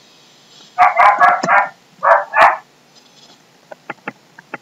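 A dog barking: a quick run of barks, then two more barks a moment later. A few sharp computer-keyboard key clicks follow near the end.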